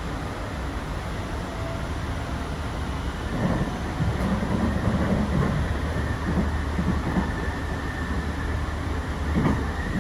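Sound Transit Series 2 (Siemens S70) light rail train running between stations, heard from inside the car: a steady low rumble, with wheels knocking and clattering about three to five seconds in and again near the end. A faint high whine comes in after about four seconds.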